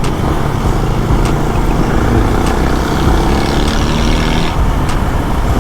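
Steady, loud engine and road noise from a moving vehicle.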